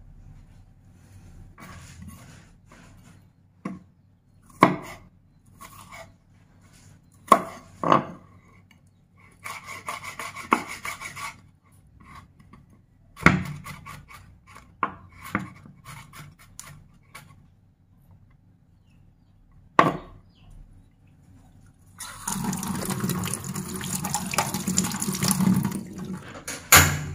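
Kitchen knife knocking on a wooden cutting board, a handful of separate sharp knocks spread over the stretch. Near the end comes a steady rushing noise lasting about four seconds.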